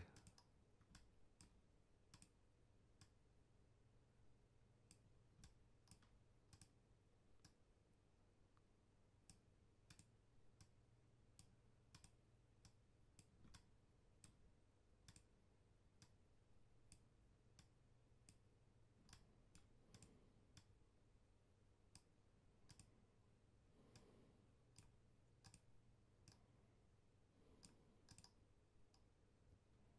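Near silence with faint, sharp computer mouse clicks at irregular intervals, about one a second and sometimes two close together, over a low steady hum.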